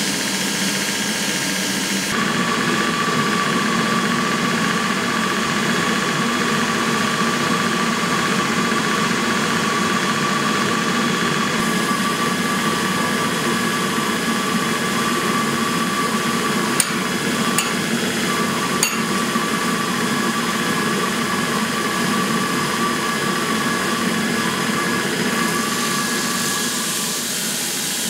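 Workshop machinery running steadily: a constant roar with a high whine over it. Three light metallic clicks come about two-thirds of the way through.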